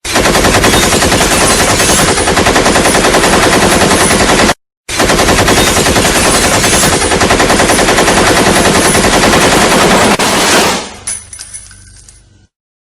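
AK-47 assault rifle firing on full automatic in two long, rapid bursts with a brief break between them. The last burst stops and its echo dies away over a second or two.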